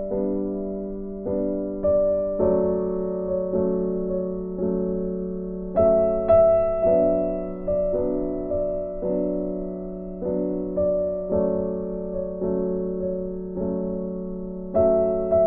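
Background music: a slow, gentle piano or electric-piano piece, notes struck about once a second and left to ring out.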